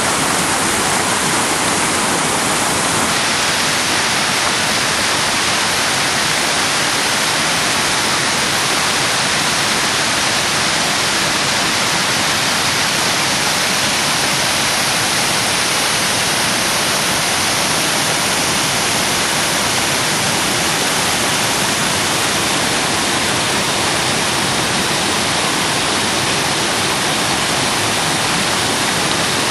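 Loud, steady rush of a small waterfall and rapids: white water tumbling over rocks and spilling over a low weir.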